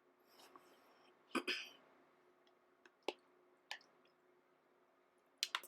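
Screwdriver working at the screws of a door lock: a few sharp metal clicks and taps, a loud double click about a second and a half in and a quick cluster near the end.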